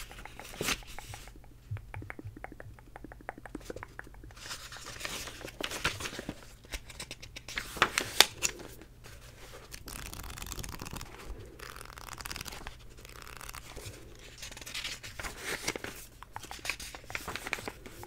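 A book handled close to the microphone, its pages flipped and riffled: irregular papery rustling and crinkling with small clicks, loudest about eight seconds in.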